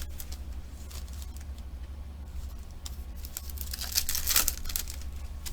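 Trading-card pack wrappers crinkling and tearing as packs are opened by hand: scattered crackles that bunch up about four seconds in, over a steady low hum.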